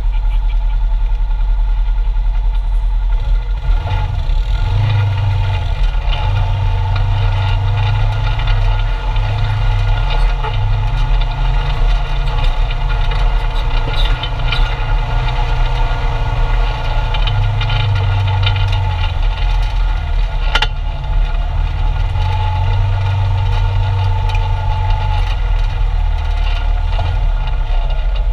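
Polaris RZR 900's parallel-twin engine running at low speed, heard from inside the cab. Its low note swells and eases in turn as the throttle is worked. One sharp click comes about two-thirds of the way through.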